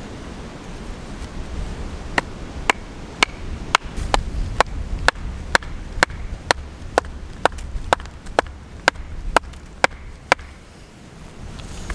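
A small axe striking the flat top of an upright green-wood stake with sharp knocks, about two a second, driving the stake into the ground. The knocks start about two seconds in and stop shortly before the end.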